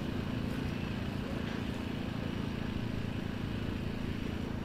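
Off-road competition truck's engine running steadily at low revs as the truck crawls over rocks, with an even drone and no revving.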